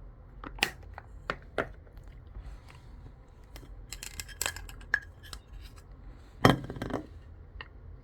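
Scattered light clicks and clinks of small objects being handled, with a cluster of them around the middle and a louder knock about six and a half seconds in, over a low steady hum.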